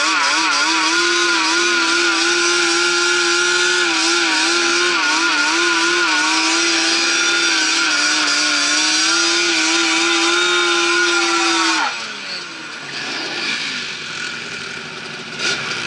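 Sport quad's engine held at high revs for about twelve seconds, the pitch wavering up and down with the throttle, then the revs drop away sharply and a lower, quieter engine sound carries on.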